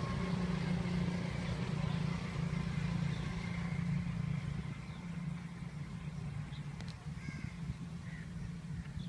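A steady low engine hum that fades away about halfway through, with a few short bird calls near the end.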